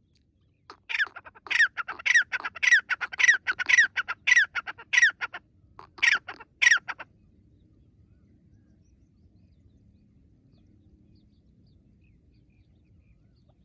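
Francolin calling: a run of about eight loud repeated notes, each falling in pitch, roughly two a second, then a short pause and two more notes, stopping about seven seconds in.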